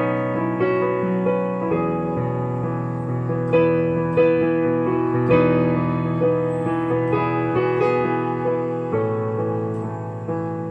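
Background piano music: a gentle, steady melody with sustained notes, a new chord or note about every second.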